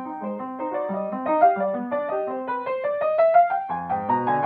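Upright piano playing a quick classical passage of many separate notes over a repeating bass figure. Lower bass notes come in and the sound grows fuller near the end.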